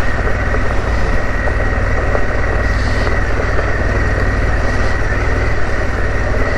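Harley-Davidson Pan America's 1250 cc V-twin engine running steadily at low speed on a rough track, as a constant low rumble with a few faint clicks.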